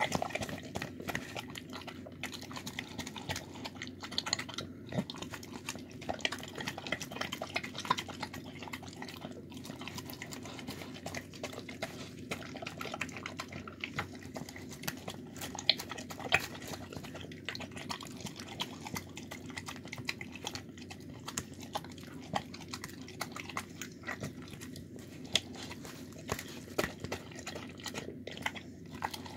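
A dog eating soft food from a plastic tub: steady irregular chewing, licking and smacking, with many short clicks. A steady low hum sits underneath.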